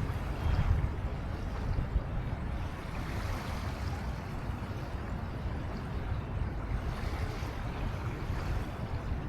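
Wind on the microphone and river water lapping, heard as a steady rush over an uneven low rumble.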